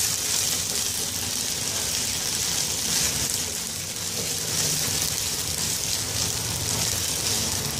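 Chopped onion and ginger-garlic paste sizzling steadily in hot oil in a nonstick pan while being stirred with a silicone spatula.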